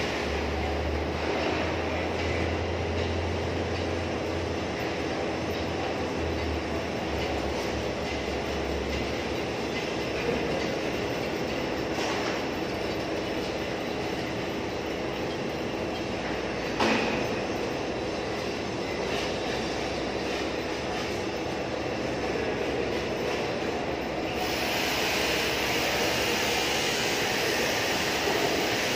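Steady machinery din of a building under construction, a continuous rumble with a faint hum, broken by two sharp knocks about twelve and seventeen seconds in. Near the end the noise turns brighter and a little louder.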